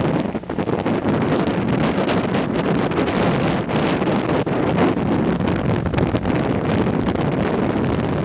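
Wind buffeting the microphone of a boat under way, in a steady gusting rush, with the noise of the boat running through the water beneath it.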